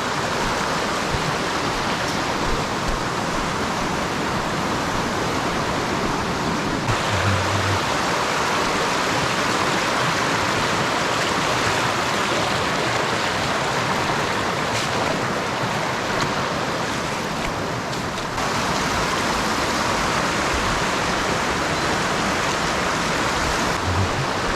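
Millard Creek rushing in high flow after heavy rain, a steady loud rush of water, shifting slightly in level about 7 and 18 seconds in.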